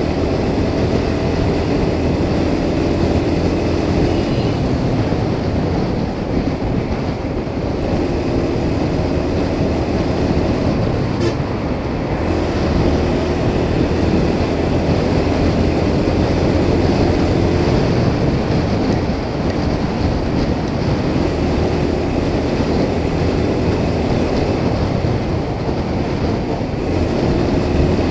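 Motorcycle engine running steadily at highway cruising speed, with a constant rush of wind and road noise over it. The engine's hum rises and falls slightly now and then.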